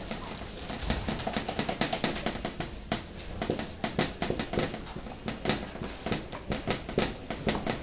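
Dry-erase marker writing on a whiteboard: a quick irregular run of short scratchy, squeaky strokes, several a second.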